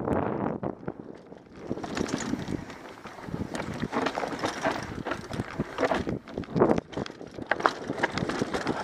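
Mountain bike riding down a rocky dirt trail: tyres crunching over dirt and stones, with irregular clatter and rattles from the bike over the rough ground. Wind buffets the helmet-mounted microphone.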